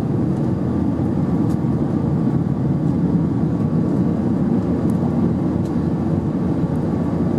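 Airbus A319 cabin noise heard from a seat over the wing while the airliner climbs after takeoff: a steady low rush of engines and airflow with a faint constant hum above it.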